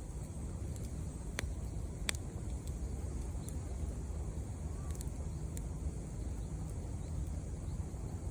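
Wood campfire burning, giving a few sharp crackling pops over a steady low rumble.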